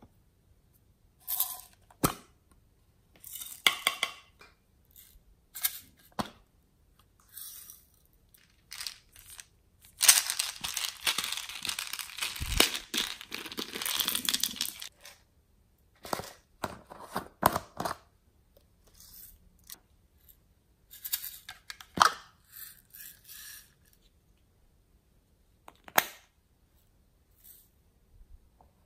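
Small plastic slime add-in containers being handled, with scattered sharp clicks and taps. About ten seconds in, small red beads are shaken out of a plastic bottle onto slime in a glass tray, a dense pattering that lasts about five seconds.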